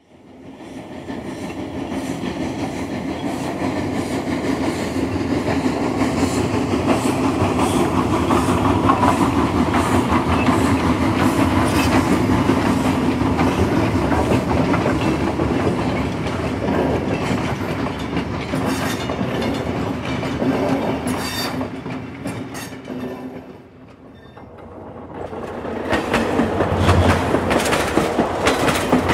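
A train running on rails: a steady rumble with quick clickety-clack of wheels over rail joints, fading in at the start. It dies down briefly near the end, then builds up again.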